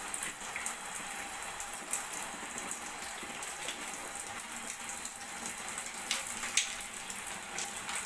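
Shower water running steadily, spraying onto wet cockatiels and a person's arm in a small tiled bathroom, with a few brief clicks near the end.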